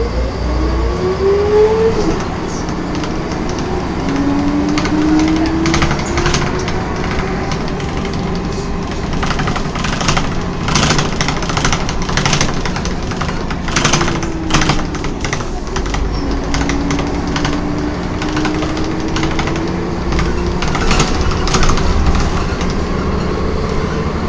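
Whining ZF automatic gearbox of a Volvo B10M bus heard from inside. The whine climbs in pitch as the bus gathers speed, drops at a gear change about two seconds in and climbs again, sinks as the bus slows around the middle, then rises again. The body gives frequent short knocks and rattles over the engine's low rumble.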